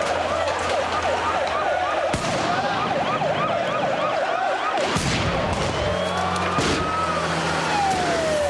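Police sirens, with fast yelping sweeps for about the first five seconds, then changing to slower, long falling and rising wails. A few sharp bangs cut through, about two and five seconds in.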